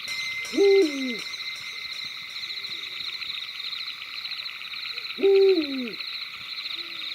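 An owl hooting twice, about four and a half seconds apart. Each loud hoot falls in pitch and is followed by a fainter, shorter call, over a steady high chirring in the background.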